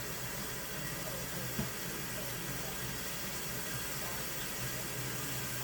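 Water running steadily from a kitchen tap, a smooth even rush that cuts off suddenly at the end as the tap is turned off.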